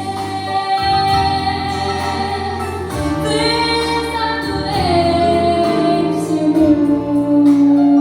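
A teenage girl singing long held notes with vibrato over a backing track; the melody drops to a lower held note about five seconds in.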